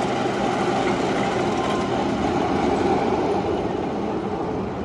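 A steel hyper coaster train (Nitro) rolling along its track: a steady roar that swells to a peak about three seconds in and then eases off.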